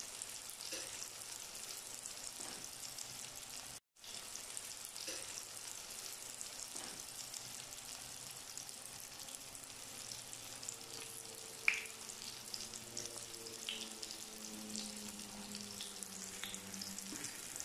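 Tortang talong (an egg-coated eggplant omelette) frying in oil in a non-stick pan: a steady sizzle with scattered small pops and one sharper pop near the middle. The sound drops out briefly about four seconds in.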